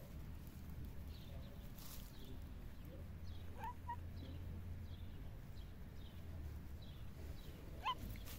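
Faint outdoor ambience: small birds chirping over and over in short high notes over a steady low rumble, with a brief rising call near the end.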